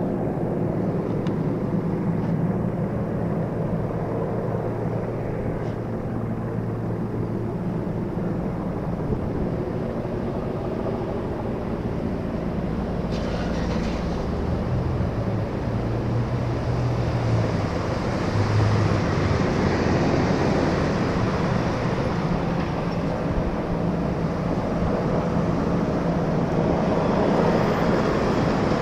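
News helicopter flying overhead: a steady rotor and engine noise with a low hum, growing a little louder in the second half.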